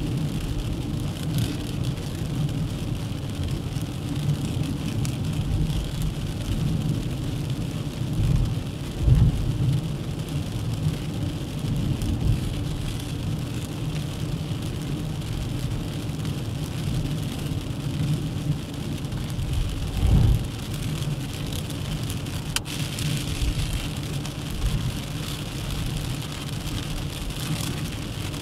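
Dacia Duster 1.3 TCe 4x4 on the move: steady road and tyre noise over a low engine and drivetrain rumble. Two louder low thumps come about nine and twenty seconds in.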